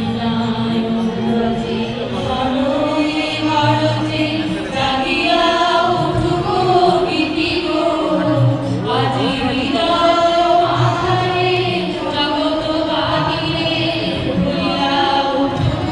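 A choir of voices singing a slow melody together, holding long notes.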